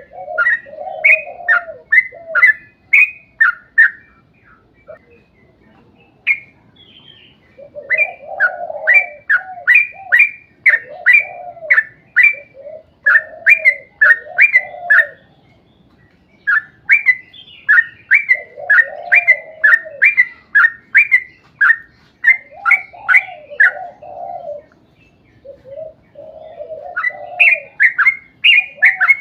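Sooty-headed bulbul singing in long phrases of rapid, repeated short chirping notes over a lower warble, with pauses of a second or more between phrases.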